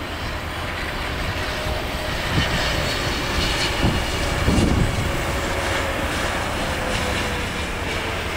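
Boeing 777-300ER's jet engines running on landing approach, a steady roar with a faint tone that slowly falls in pitch as the airliner passes. A few low thumps come through in the middle.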